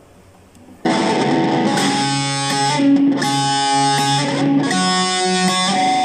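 Dean Razorback electric guitar, newly strung with Ernie Ball Slinky 9–42 strings, played in a phrase of held single notes that starts suddenly about a second in. It is being played to check its tuning and intonation, and sounds in tune with no fret buzz.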